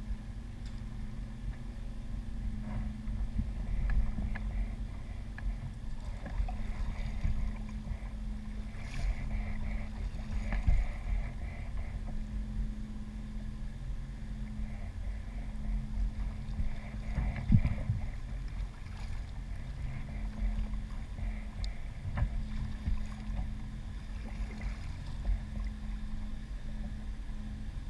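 Water and wind noise around a fishing kayak on the water: a steady low rumble with a constant low hum, and a few hollow knocks, the loudest about two-thirds of the way through.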